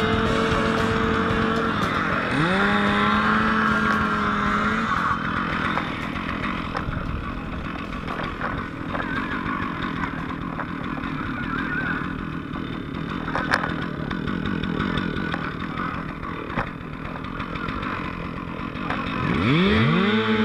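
Gas-powered saw at high revs, with a steady whine. It cuts out briefly, then revs sharply back up and holds. A rougher, noisier stretch with a few sharp knocks follows, and near the end the saw revs up again. This is a roof being cut open to ventilate a fire.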